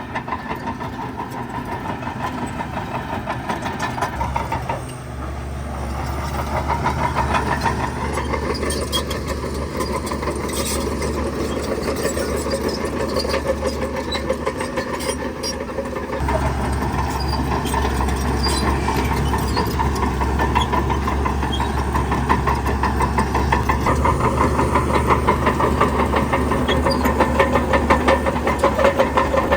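Heavy construction machine's diesel engine running steadily with a rapid, even pulsing, its deep note shifting twice, about five and about sixteen seconds in.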